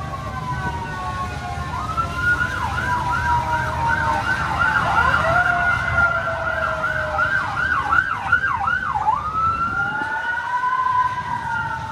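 Fire-truck sirens on kids' fire rescue trucks: a slow wail that switches to a fast yelp of about two sweeps a second for several seconds, then goes back to a slow rising wail. A second siren tone overlaps it, over a low steady rumble.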